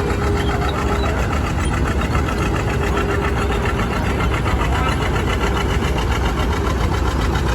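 Engine of a vintage construction machine running steadily, with a fast, even firing beat.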